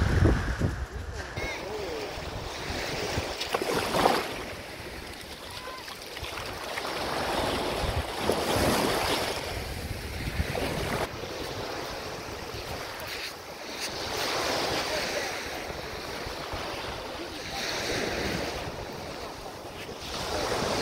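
Surf washing onto a sand beach, swelling and fading every few seconds, with wind buffeting the microphone.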